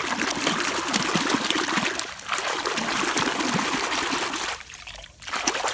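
Running water splashing and trickling over a muddy toy vehicle as it is rinsed clean. The flow dips briefly about two seconds in and mostly stops near the end.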